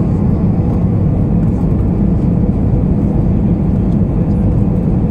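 Steady cabin roar of an Airbus A320 on short final before touchdown: engine and airflow noise heard from a seat over the wing, deep and even, with a faint steady hum above it.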